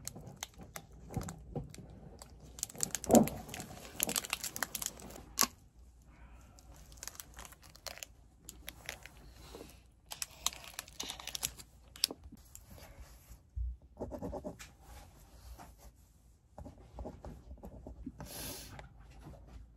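Chocolate bar wrapper being torn and crinkled, foil and packaging crackling densely through the first five seconds or so, with a louder crunch about three seconds in. Then sparser rustling.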